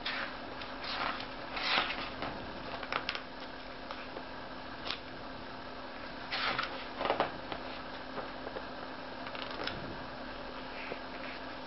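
Pages of a large hardcover art book being turned by hand: short papery swishes and rustles, several times, as the pages are flipped.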